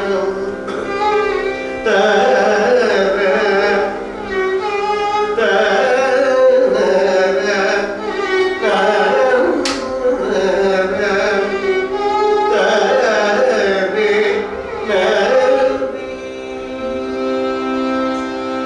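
Carnatic vocal music: a man sings ornamented, wavering phrases over a steady drone, with violin accompaniment. About sixteen seconds in the voice drops out and the violin carries on with held notes. A single sharp click near the middle.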